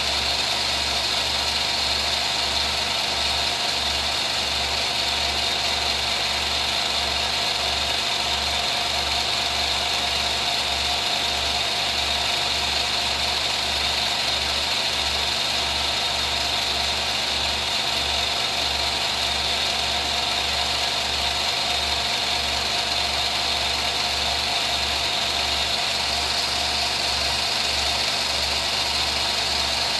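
Film projector running steadily: a continuous motor whir with a low, evenly pulsing hum underneath.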